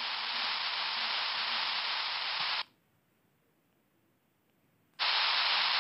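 Steady hiss from a voice recording's background noise. About two and a half seconds in, it cuts to dead silence for a little over two seconds, then the hiss returns.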